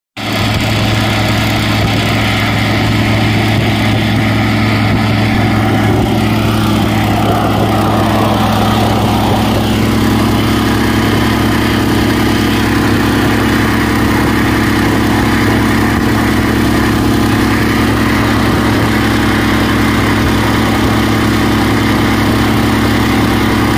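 Small engine running steadily at a constant speed, over the steady rushing hiss of the preheating torch flame in a thermite rail-welding mould.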